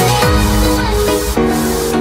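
Electronic dance music with held synth chords and a bass line that slides down near the start.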